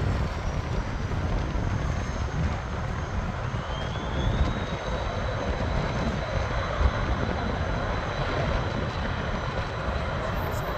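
Business jet's turbofan engines running over a low rumble, with a thin whine that rises in pitch about three and a half seconds in and then holds steady.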